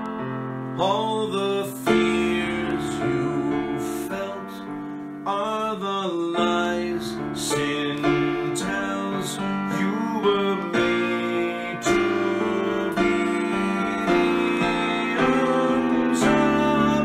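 A man sings a slow song to his own piano-voiced electronic keyboard: sustained chords over a bass line, with his held, wavering vocal notes coming and going.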